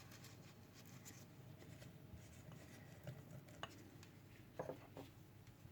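Near silence, with a few faint soft taps and rustles of hands handling food and a jar, mostly in the second half.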